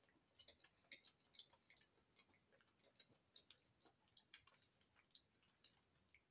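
Faint closed-mouth chewing of a mouthful of meatball sub: soft, irregular mouth clicks, a few a second.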